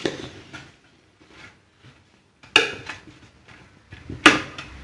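Metal spoon scraping and knocking against a steel bowl while stirring grated vegetables, with two loud clanks about two and a half and four seconds in.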